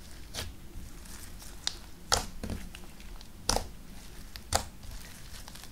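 Clear slime mixed with heavily diluted Snow Wonder instant snow being squeezed and kneaded by hand, giving irregular wet crackly squishes, about six in all.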